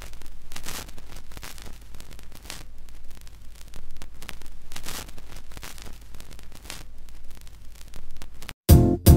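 Vinyl record surface noise: crackle, pops and hiss from the stylus riding the lead-in groove of a spinning record, over a low hum. It cuts off near the end, and music with a steady beat starts.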